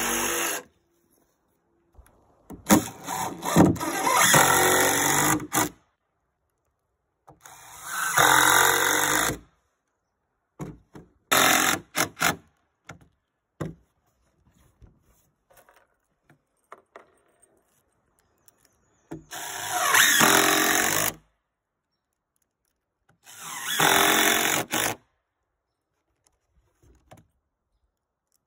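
DeWalt cordless driver running screws into wooden floorboards in four runs of about two to three seconds each, with short clicks between them. A jigsaw cut stops about half a second in.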